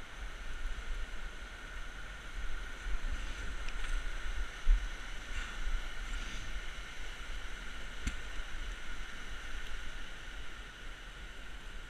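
Rushing river water heard from a bike riding along its bank, with low wind buffeting on the microphone. The bike rattles and bumps over the path, with a sharp knock about eight seconds in.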